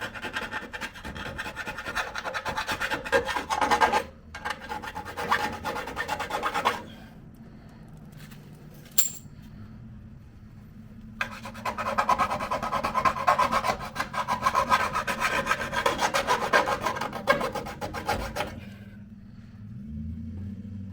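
Rapid rasping strokes of a hand tool scraping back and forth, in three spells: one of about four seconds, a shorter one right after, then after a pause a longer one of about seven seconds.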